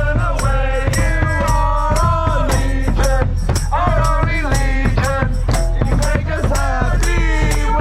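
Music track with a sung melody over a steady beat, with shaker-like percussion and heavy bass.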